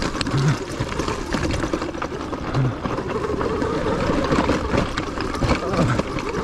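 Sur-Ron electric dirt bike working its way up a rocky hill climb: drivetrain noise under load, with many short irregular knocks as the tyres and suspension go over rocks.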